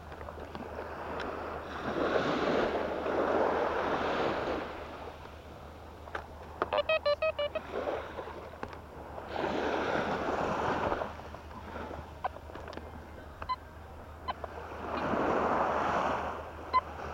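Sea waves washing onto the beach in three swells about six seconds apart. About seven seconds in, a metal detector gives a quick run of about eight short beeps, signalling a buried target, with a couple of single short beeps later.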